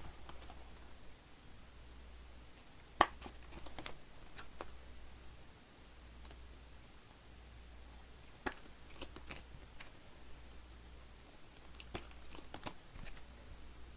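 Trading cards being handled and set down on a table: scattered sharp clicks and taps, the loudest about three seconds in, another near the middle and a quick cluster near the end, over a faint low hum.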